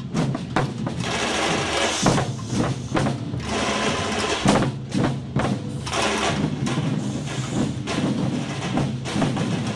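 Samba-reggae percussion group playing a rhythm together: deep bass drums under a steady stream of sharp snare-drum strokes.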